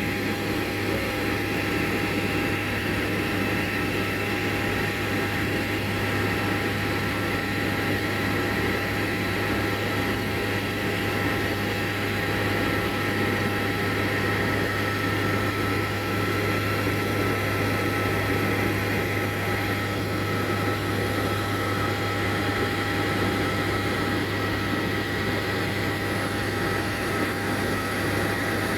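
Airplane engine and propeller drone heard from inside the cabin in flight: a steady, unchanging hum with a few constant higher tones over it.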